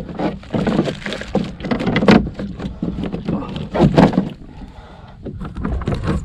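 Irregular knocks and splashes, loudest about two and four seconds in, over a steady low rumble of wind on the microphone, as a hooked small snapper is landed beside a kayak.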